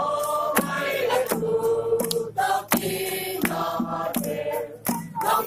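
A crowd singing a Christmas carol together in long held notes, with sharp percussive beats through the singing.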